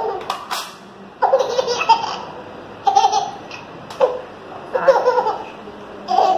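Baby laughing in short giggly bursts, five or six bouts about a second apart.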